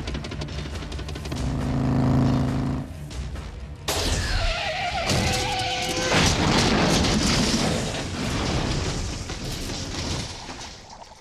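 Film soundtrack of a large truck crashing: engine rumble, then a sudden loud crash a little under four seconds in, with metal screeching for a couple of seconds. Dense crashing noise follows and slowly dies away, with dramatic score underneath.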